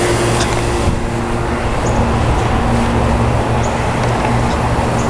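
Steady rush of heavy rain and strong wind during a severe thunderstorm, with a low hum underneath and a few faint sharp ticks scattered through it.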